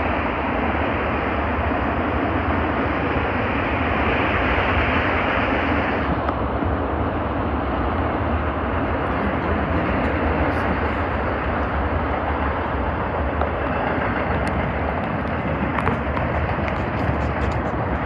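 Union Pacific manifest freight train rolling past, a steady noise of steel wheels on rails, with faint clicks in the second half.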